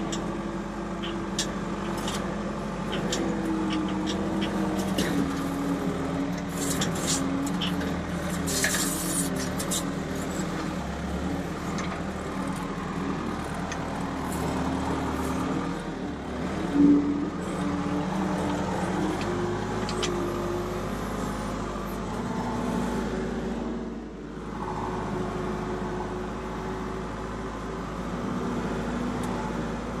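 Skid steer loader engine running steadily, its pitch shifting as the machine drives and works, with rattles and clicks from the fork attachment. A single loud sharp knock comes about 17 seconds in.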